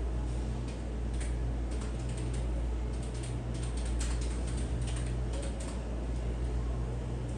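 Irregular clicking of keys and controls on an ultrasound machine's console as measurements are taken, over a steady low electrical hum.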